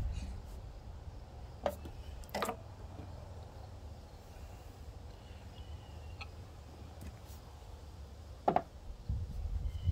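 A few sharp clicks and knocks of hands working on a lawnmower's carburetor and rubber fuel line, two close together in the first few seconds and one near the end, over a low steady rumble.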